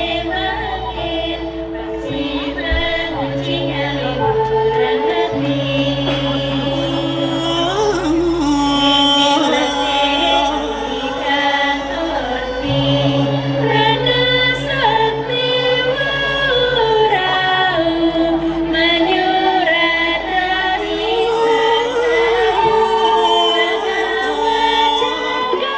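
Balinese gong kebyar gamelan music with a sung vocal chorus (gerong): long held sung notes that glide between pitches, over the ringing tones of the ensemble.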